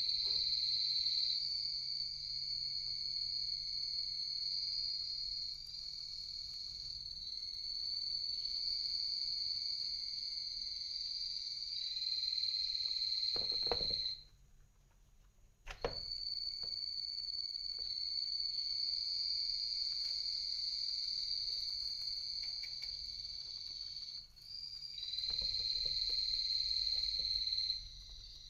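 A continuous high-pitched insect-like trill that breaks off for about two seconds near the middle. Under it are faint crunches and rustles of guinea pigs chewing hay.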